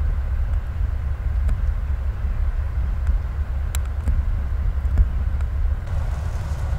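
Heavy diesel machinery running at idle: a steady low rumble, with a few faint knocks over it.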